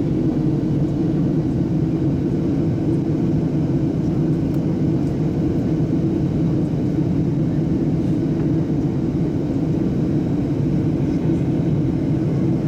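Steady low drone inside a jet airliner's passenger cabin: the turbofan engines and the airflow over the fuselage, holding an even level throughout.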